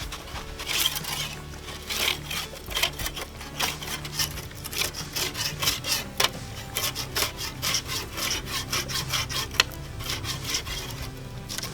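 Handsaw blade scraping and rasping bark off a log in quick repeated strokes, stripping the wood bare.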